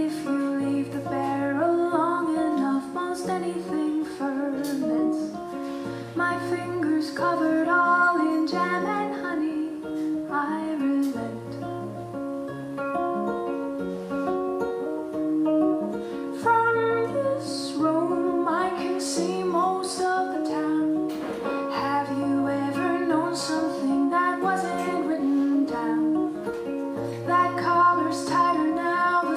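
A woman singing to her own fingerpicked Yamaha acoustic guitar, a low bass note coming back about every second and a half under the melody.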